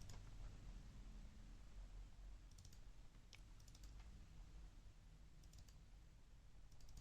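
Near silence: low room hum with a few faint computer clicks in small groups, about a third of the way in, in the middle, and near the end.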